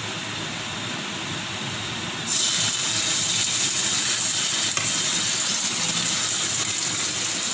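Hot oil sizzling in a stainless steel wok; a spoonful of tomato puree drops in about two seconds in and the sizzle jumps to a louder, steady hiss.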